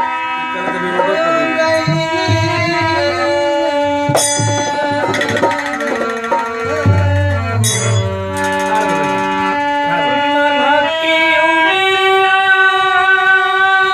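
Music: a melody of long, held notes that step from pitch to pitch, over low drum strokes.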